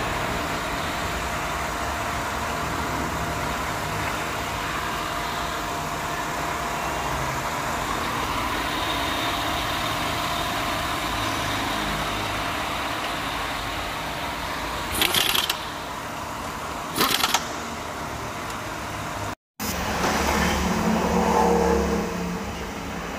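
Toyota 2.5-litre V6 engine idling steadily, heard over the open engine bay. Two short sharp noises come about 15 and 17 seconds in. After a brief cut, a louder, deeper rumble follows near the end.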